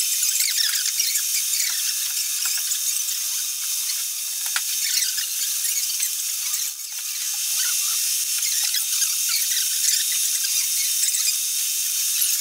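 Horizontal milling machine's disc cutter cutting a tooth into a solid brass escapement blank: a steady high-pitched cutting hiss with fine squeals from the chips, dipping briefly about seven seconds in.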